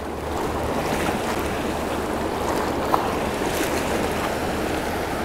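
Fast river water rushing over rocks and boulders in a steady rush, with one faint tick about three seconds in.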